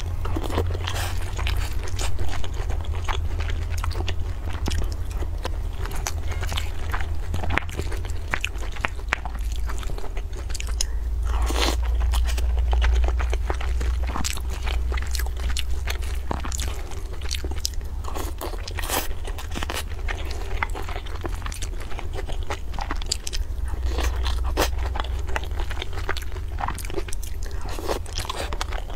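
Close-miked mouth sounds of a person chewing and crunching food, with many small wet clicks and a spoon scraping against the bowl now and then. A steady low hum runs underneath.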